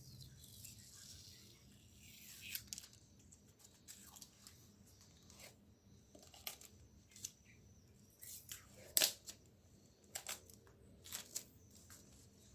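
Borneo-brand white lakban (duct tape) being pulled off the roll and worked onto a plastic sheet: a drawn-out rasp over the first two seconds or so, then scattered crinkles and clicks, the sharpest about nine seconds in.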